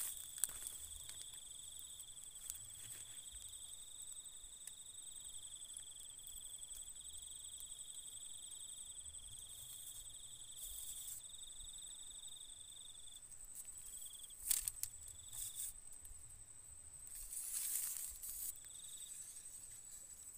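Insects trilling steadily in two high-pitched continuous tones, the lower of which stops about two-thirds of the way through and comes back briefly. A few short rustling noises sound late on.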